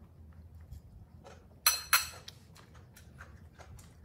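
Two sharp clinks close together a little under two seconds in, hard objects knocking against each other, with faint scattered taps around them over a low room hum.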